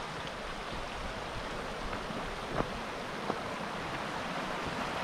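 Steady rushing of running water, with two faint ticks in the middle.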